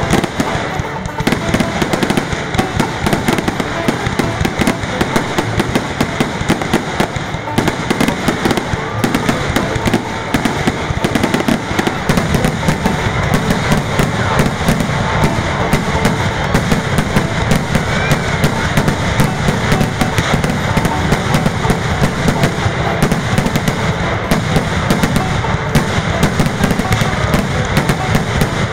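Fireworks going off in a dense, unbroken barrage of bursts and crackling, growing heavier in the low booms partway through.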